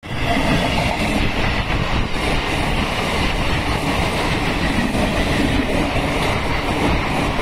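Indian Railways electric multiple-unit local train passing close at speed: the steady rumble and rush of its coaches' wheels on the rails.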